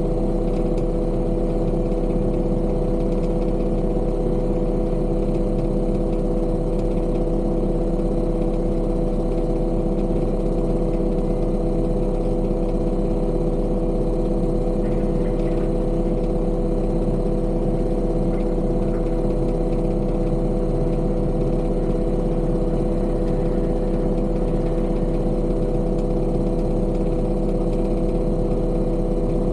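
Diesel engine of a piece of construction machinery running at a constant speed. It makes an unbroken, steady hum with a low drone and several even tones.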